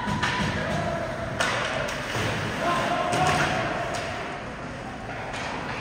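Ice hockey play: scattered sharp clacks and thuds of sticks, puck and boards, over distant voices of players and spectators.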